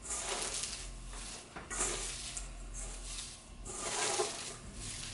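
Hands squeezing and turning wet shredded papaya flowers in a stainless steel bowl: irregular wet rustling and squelching that comes and goes every second or so.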